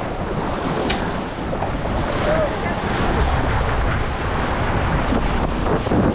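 Wind buffeting the microphone over water rushing and splashing along the hull of a J/70 sailboat moving fast in a strong breeze.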